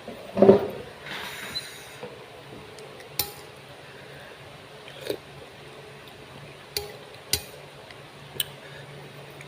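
Utensils clinking against dishware while eating: a fuller knock just after the start, then a handful of light, separate clinks a second or more apart.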